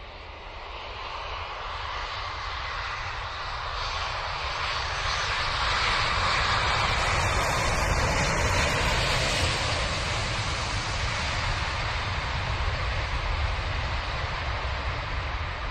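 Jet airliner passing low on its landing approach: a steady rushing engine noise that builds over the first several seconds, is loudest a little past the middle, then eases slightly.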